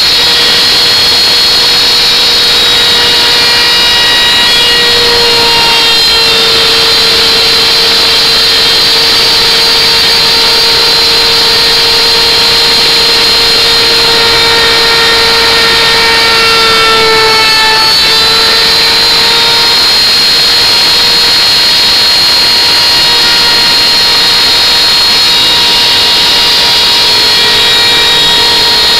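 CNC-mounted wood router running continuously as it cuts into a wooden board, a loud steady high whine that dips briefly in pitch about two-thirds of the way through.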